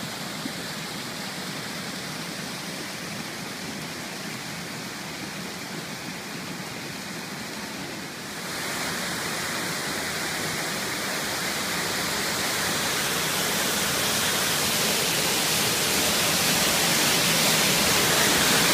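A small mountain waterfall rushing steadily over rock. About eight seconds in, the sound gets louder and brighter, and it keeps building toward the end, nearer the falling water.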